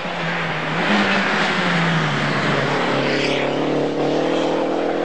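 Rally car engine running hard as the car goes past at speed, loud from about a second in, its engine note falling in pitch as it goes by.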